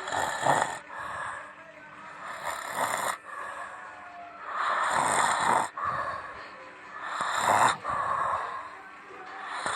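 A person snoring loudly in a steady rhythm, one snore about every two and a half seconds.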